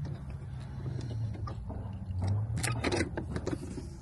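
Sterling dump truck's diesel engine idling with a low steady hum. Over it come short clicks and rattles of a metal bungee-strap hook being worked into a hole on the battery box.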